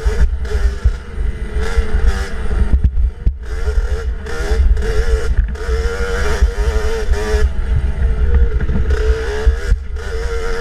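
65cc two-stroke dirt bike engine revving up and down as the throttle is opened and shut, over a heavy low rumble. It chops off briefly about three seconds in and again near the end before picking up again.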